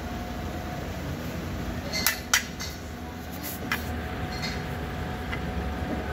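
A few sharp metallic clicks, the loudest a little over two seconds in, as a small washer and pin are fitted onto a drum brake shoe, over a steady low background rumble.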